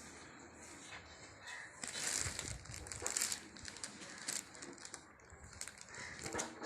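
Packaging and a woolen shawl being handled: rustling and crinkling, busiest from about two to three and a half seconds in.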